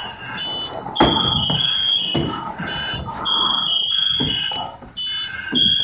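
Firefighter's PASS alarm sounding a loud, high-pitched electronic tone in repeated bursts that step between two close pitches. Short knocks and scrapes of turnout gear against furniture come through it as a firefighter crawls under a table.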